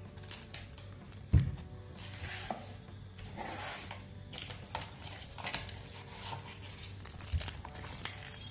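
Paper and plastic earphone packaging being handled: a plastic pouch and paper brochure rustling and crinkling in short scattered bursts. There is one sharp knock about a second and a half in, the loudest sound, and a lighter one near the end.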